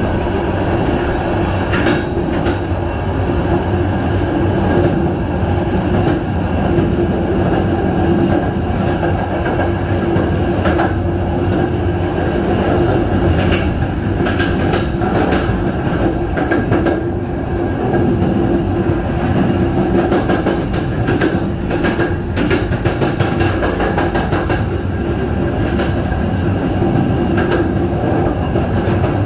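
Passenger train running along the track: a steady rumble and hum, with scattered clicks of the wheels over rail joints.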